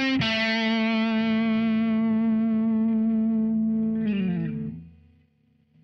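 Harley Benton Fusion II HSH Pro electric guitar played with distortion: a single note picked just after the start rings out with vibrato for about four seconds, then slides down in pitch and fades away.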